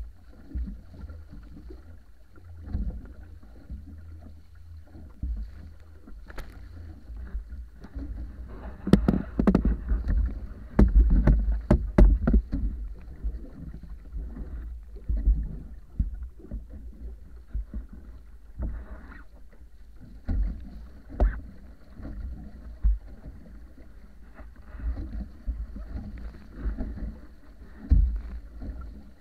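Water rushing and splashing along the hull of a wooden wa'apa outrigger canoe under sail, over a constant low rumble. It comes in irregular surges, loudest from about nine to twelve seconds in, with a few sharp clicks among the splashes.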